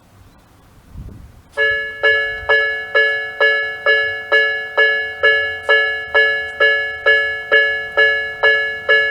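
Railway level-crossing warning bell starts about a second and a half in and rings steadily, about two strikes a second, each a ringing electronic tone that dies away before the next. The bell signals that a train is approaching and the crossing is closing.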